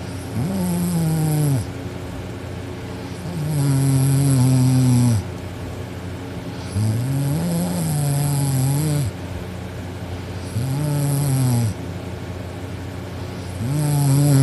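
A teenage girl snoring noisily in deep sleep: five long snores, each held on a steady droning pitch, coming about every three to four seconds with quieter breaths between.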